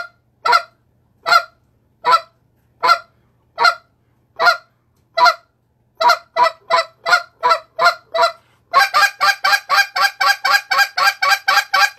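Hand-held goose call blown in short, clipped goose notes, spaced slowly at first, quickening about six seconds in, then a hard, fast run of about five notes a second near the end, the kind of hard calling used to turn geese around.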